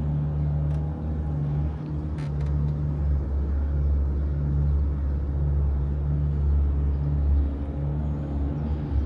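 Boat engine running steadily, a low drone with a steady hum.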